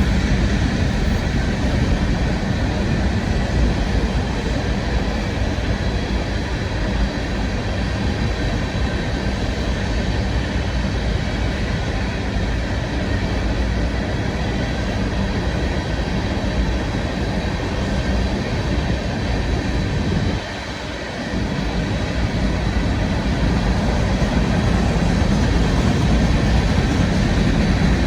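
Train rolling past on the rails: a steady, loud rumble of railcars, with a brief dip in level about 20 seconds in.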